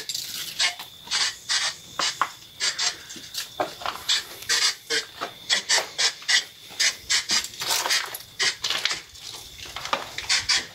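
Footsteps scraping and crunching on a gritty, debris-strewn floor, an uneven step every half second or so, with a faint steady high tone underneath.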